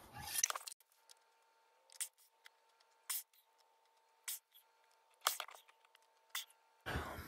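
A person gulping water from a glass mason jar: five faint, short swallows about a second apart.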